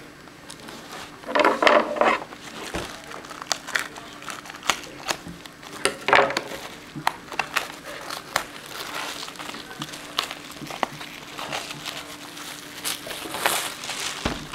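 Crinkling, crackling packaging being handled and torn open as a pack of cigars is unwrapped, with many irregular small clicks and rustles.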